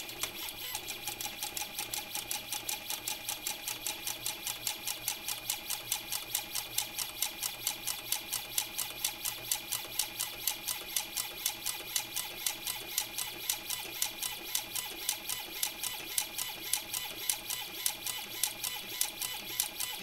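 Motorised safe auto dialer turning a combination lock's dial: a steady motor whine with regular clicking, about three to four pulses a second, as it works through the combinations one after another.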